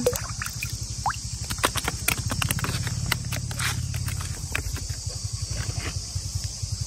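A small engine running steadily with a fast, even chugging, likely a pump engine draining water. Insects buzz steadily above it, with scattered splashes and knocks, most in the first half.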